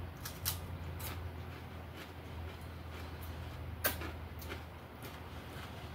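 Chewing and lip-smacking while eating fried chicken: a scatter of short wet clicks, the sharpest about half a second in and just before four seconds in, over a steady low hum.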